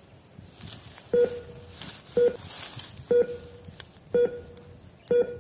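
Toy treasure-finder wand beeping as it searches: five short, low electronic beeps, about one a second.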